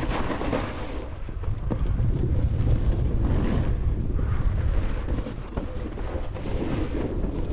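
Wind buffeting an action camera's microphone at riding speed, a steady heavy rumble. Over it a snowboard scrapes and chatters across chopped-up snow, swelling with each turn.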